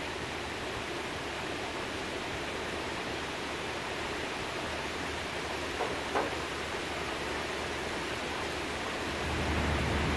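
Heavy rain pouring down in a steady hiss, with two sharp drops striking a tin window ledge about six seconds in. A low rumble swells near the end.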